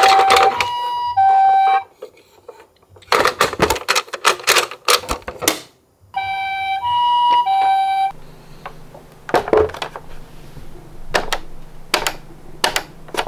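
Toy ambulance's electronic two-tone siren, the Japanese "pee-poh" alternating high and low notes, sounding for about two seconds at the start and again about six seconds in. Between the bursts come a stretch of dense plastic rattling and clicks, then scattered clicks over a faint low hum.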